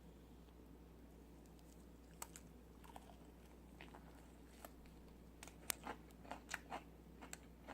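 Faint, crisp crunches of teeth biting and chewing through the battered coating of fried chicken drumsticks. They are scattered at first and come more often in the last couple of seconds, over a low steady hum.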